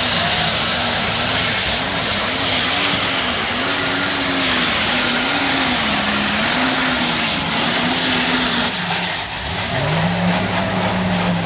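Modified pulling tractor running flat out at full power during a pull, with a high steady whine over the engine and its pitch rising and falling about once a second; it eases off about nine seconds in.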